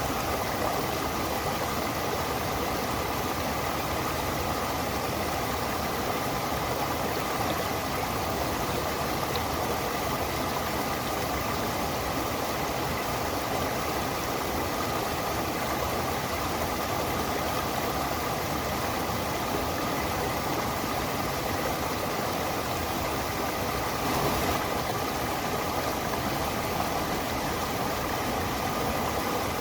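Stream water flowing with a steady rush, swelling slightly for a moment about three-quarters of the way through.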